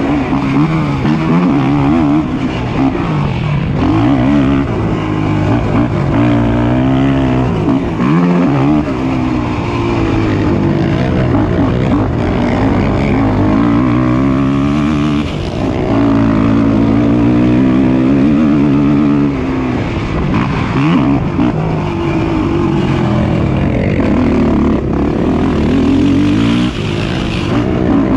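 Racing ATV engine noise, the engines revving hard with the pitch climbing and dropping over and over as they accelerate and back off.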